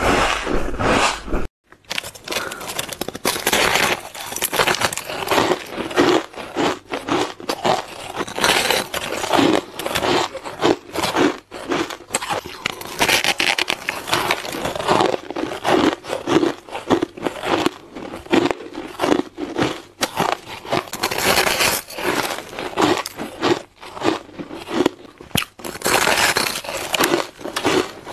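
Close-miked biting and chewing of chunks of white, snow-like frosty ice: crisp crunches in quick, uneven succession, with a brief silence about a second and a half in.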